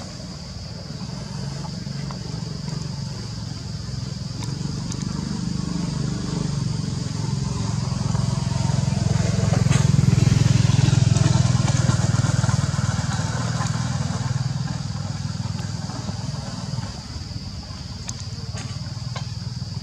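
A motorbike engine running, growing louder to a peak about ten seconds in and then fading away: a vehicle passing by.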